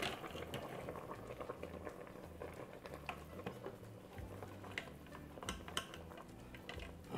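Dark soy braising sauce bubbling steadily in an electric pressure cooker's inner pot as it reduces with the lid off. A wire strainer and a wooden spatula make a few light clicks and taps against the pot.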